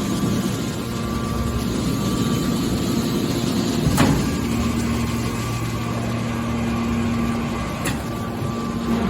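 Hydraulic scrap-steel baler running: a steady drone with a constant hum from its hydraulic power unit, broken by a sharp knock about four seconds in and a lighter one near the end.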